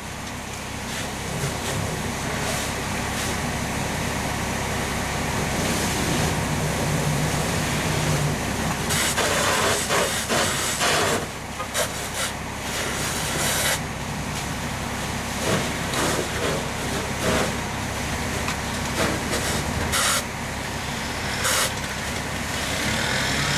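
Fire engine's engine and pump running steadily, under the hiss of a hose stream spraying onto a burning car and sending off steam, with several sudden louder rushes of spray noise.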